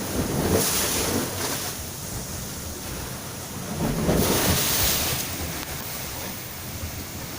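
Sea waves and wind buffeting the microphone: a steady rushing noise with a low rumble, swelling about half a second in and again around four to five seconds in.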